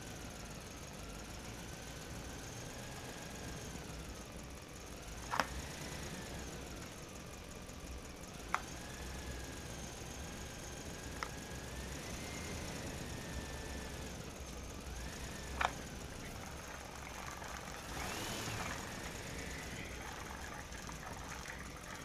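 Hard plastic toy animal figures clacking against the plastic bed of a toy dump truck as they are set in, four sharp clicks a few seconds apart. A short scraping noise comes near the end, over a faint background with a slowly wavering tone.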